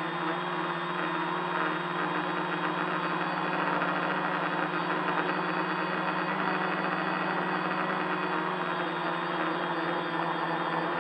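Tricopter's three electric motors and propellers running steadily in flight, heard close up from a camera mounted on the craft: an even drone with a steady pitch.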